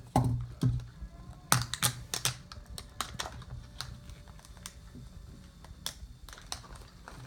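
Hard plastic toy packaging being handled and opened: irregular clicks and taps, loudest in the first two seconds, then lighter ones.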